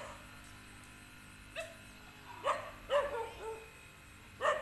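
A dog barking in short, high yips, a few bunched together in the middle and one more near the end.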